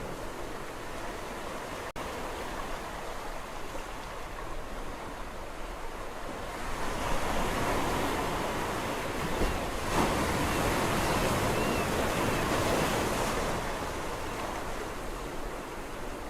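Sea waves washing in with a steady hiss; a wave builds up louder about halfway through, then recedes. A momentary dropout about two seconds in.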